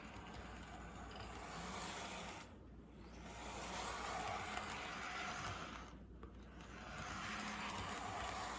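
Kato N scale F40PH model locomotive running on track: a faint small-motor whir and rolling wheels that swell and fade, dropping out briefly twice. It is being run across a switch to test a front truck that the owner suspects is out of spec.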